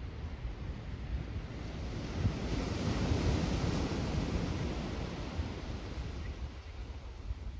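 Ocean surf breaking on a beach: a wash of wave noise that swells to its loudest about three seconds in and then eases off, with wind rumbling on the microphone.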